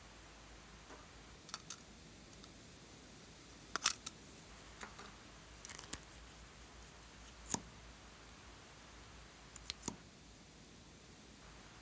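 Scattered sharp clicks and taps of plastic lipstick tubes and caps being handled and opened, about ten in all, often in quick pairs, the loudest about four seconds in.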